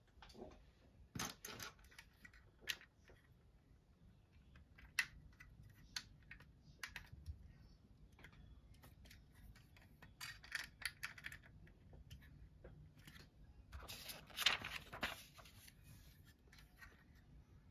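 Plastic Lego bricks clicking and clattering as pieces are picked from a pile and pressed onto a model. The light clicks come irregularly, with a few denser clusters, the busiest near the end.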